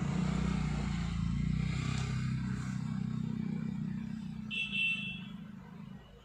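Low rumble of a vehicle engine, fading gradually, with a short high-pitched beep about four and a half seconds in.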